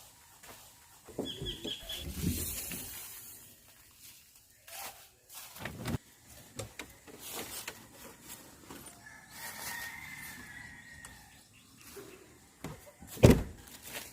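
Scattered knocks and clicks of camp gear being handled. About nine seconds in, a rooster crows distantly with one drawn-out call. Near the end comes a heavy thump, the loudest sound.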